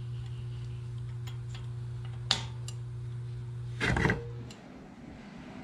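Light metal clicks and a short clatter from brake caliper hardware, a pad guide pin and anti-rattle spring being fitted, with the loudest clatter about four seconds in. A steady low hum runs underneath and stops about four and a half seconds in.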